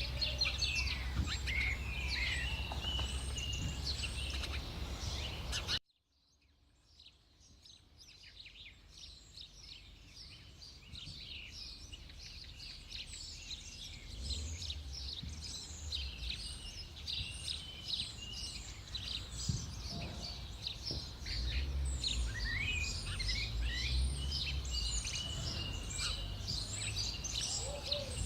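Many birds chirping and twittering over a low background rumble. The sound cuts out abruptly about six seconds in, then the birdsong fades back in gradually over the next several seconds.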